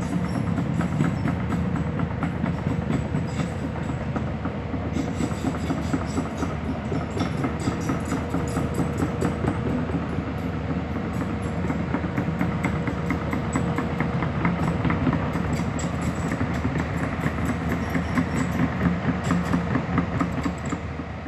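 Hyundai HX210S excavator's diesel engine running steadily, with a continuous rattling metallic clatter.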